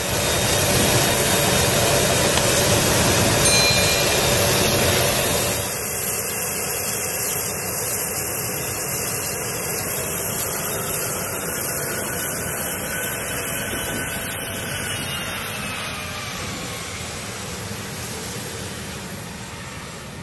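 A-10C Thunderbolt II's twin TF34 turbofan engines running: a loud, steady jet noise that drops a little about five seconds in and then slowly fades. Midway a high whine slides slowly down in pitch.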